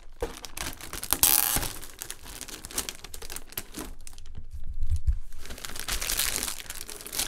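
Thin plastic wrapping crinkling and rustling in irregular handfuls as it is pulled back off an RC truck's body, with a loud crinkle about a second in.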